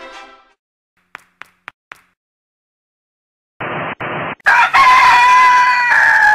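A rooster crowing once, loud and long: a held call that drops in pitch as it ends. Just before it come two short bursts of TV static hiss, and a few faint clicks sound earlier.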